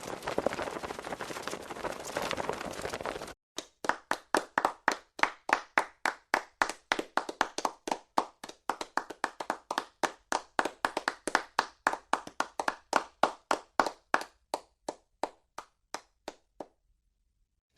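Applause from a group that cuts off abruptly about three seconds in, followed by a steady run of single hand claps at about four a second that grow fainter and stop near the end.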